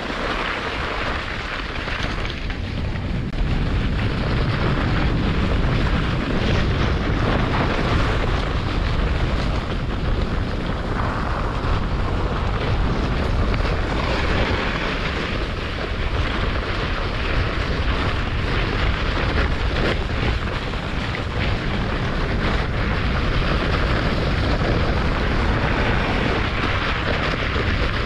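German Luge 115 wooden sled running down a snowy toboggan run at speed: a steady rushing of runners over snow mixed with wind buffeting the camera microphone, swelling slightly now and then.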